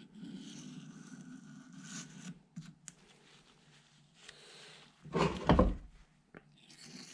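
Razor blade scraping old grease off a steel drive shaft, a rough scraping for about two seconds, then a few small clicks and a soft wipe of the blade on a paper towel. A louder thump comes about five and a half seconds in.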